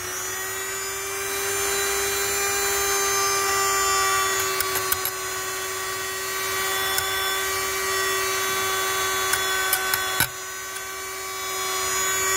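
Handheld rotary tool running at high speed with a steady high-pitched whine while its bit cleans inside a fitting on a toy steam engine's boiler. A few brief clicks come as the bit knocks against the engine's copper pipes.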